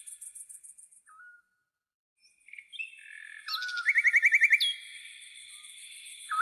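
Several tropical birds chirping and whistling over a high, rapidly pulsing cricket trill. The sound drops out to near silence for about a second near the start, then returns, its loudest part a quick run of rising chirps about four seconds in.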